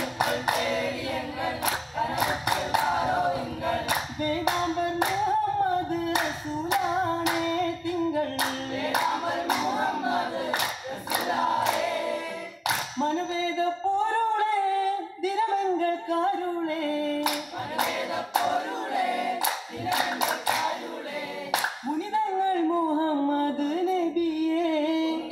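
Vattappattu, a Mappila group song: a row of men singing together in unison, with bursts of sharp hand claps keeping the rhythm.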